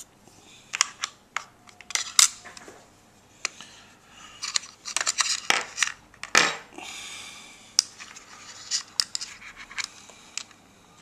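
Irregular clicks, taps and brief light scraping of small hard plastic and metal parts being handled: an RC car's central transmission being fitted into the front gearbox's universal cup.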